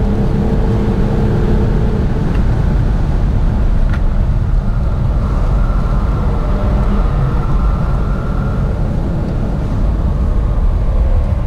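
A car driven at speed, heard from inside the cabin: a steady, loud rumble of engine and road noise. A faint higher engine tone comes in about halfway through.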